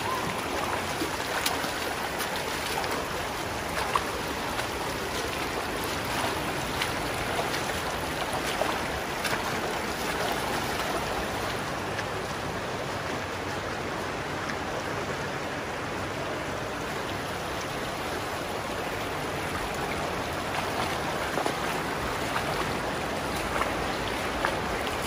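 Shallow creek water rushing steadily over rocks, with a few faint knocks scattered through it.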